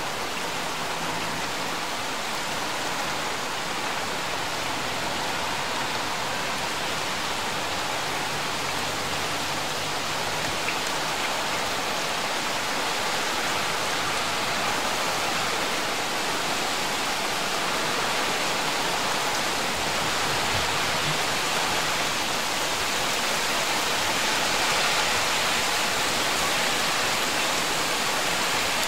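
Steady rain hiss from a thunderstorm downpour, growing slowly louder.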